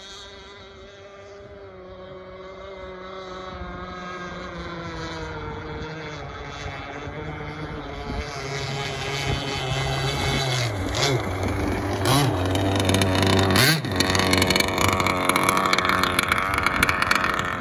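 Bonzi Sports 47-inch Skater RC boat's two-stroke engine running on the water, growing steadily louder as the boat comes in close. Its pitch wavers up and down as the throttle changes in the second half, and it is loudest near the end.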